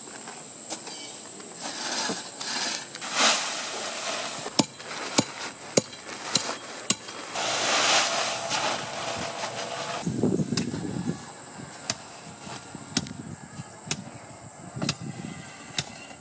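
Gravel and dry concrete mix pouring from bags into a timber pad form, in two rushing pours a few seconds apart, with scattered sharp knocks. In the second half come repeated dull thuds of hand-tamping the gravel layer.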